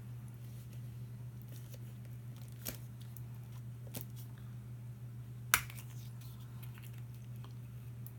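A small plastic toy being twisted and pried at by hand: a few faint clicks and one sharp snap about five and a half seconds in, over a steady low hum.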